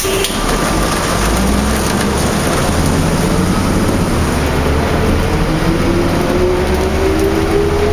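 A 2004 New Flyer D40LF diesel transit bus with a Cummins ISL engine and ZF transmission, heard running through heavy rain. A steady low rumble sits under a dense hiss of rain and road noise, and a drivetrain whine rises slowly in pitch from about halfway in.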